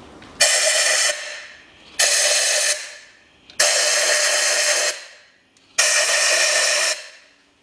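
Compressed-air blow gun hissing in four short blasts, each starting sharply and trailing off, the last two longer, as its nozzle blows dirt out of the spark plug wells before the plugs are removed.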